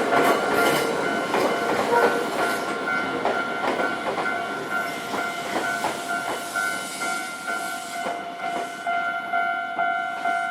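A Japanese level-crossing warning bell clanging steadily about twice a second while a Nankai Kada Line train runs over the crossing, its wheels clacking over the rail joints and growing fainter as it goes.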